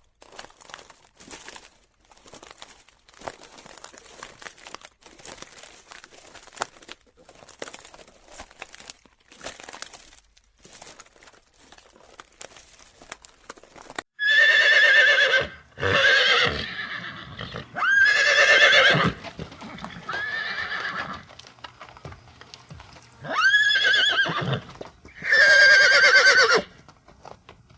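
Horse hooves clip-clopping in irregular knocks for about half the time, then a horse whinnying loudly about six times in wavering, quavering calls.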